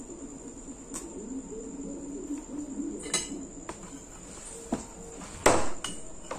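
A cricket trills steadily and high-pitched throughout, over close chewing and small clicks of eating. About five and a half seconds in, a fork gives a short, loud clatter against the plate.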